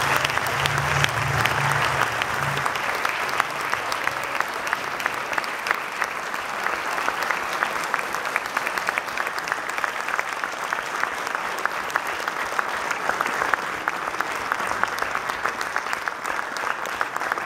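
Theatre audience applauding steadily, a dense patter of many hands clapping at the end of a performance.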